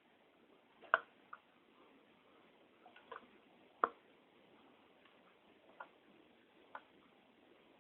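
Irregular small clicks and taps, about seven, as small tools and hard-drive parts are handled on a work surface; the loudest are about a second in and near four seconds.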